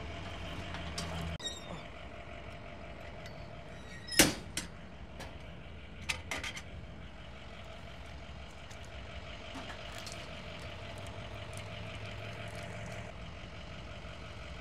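An engine running steadily with a constant whine over it. It is broken by a few sharp clacks: a loud one about four seconds in, a smaller one just after, and a short cluster about two seconds later.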